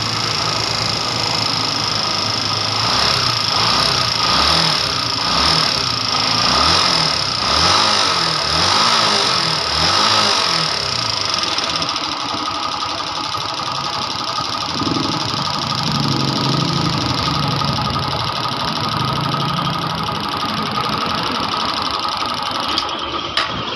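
Honda TMX 125's single-cylinder engine running on a newly fitted battery-operated DC CDI, which replaced the old CDI because the weak primary coil made it hard to start. It is revved up and down several times, then settles to a steadier idle about halfway through.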